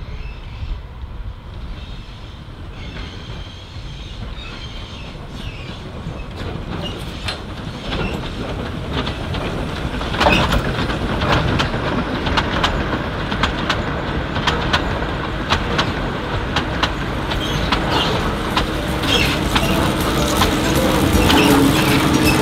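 Narrow-gauge steam-hauled passenger train passing close by. The wheels click over the rail joints and squeal at times, getting louder as the coaches roll past.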